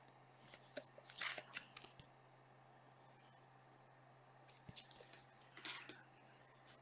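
Faint crinkling and rustling of a plastic card sleeve as trading cards are handled, in a few short soft bursts over a faint steady hum.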